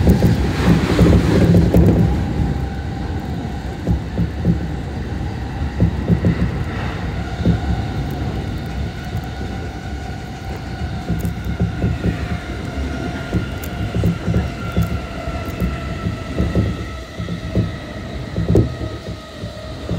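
Running noise heard inside a JR Tokaido Line commuter train: a loud rush in the first two seconds as an orange-and-green striped train passes close by, then steady running with rail-joint clicks and a motor whine that falls slightly in pitch in the second half. A container freight train runs alongside on the next track near the end.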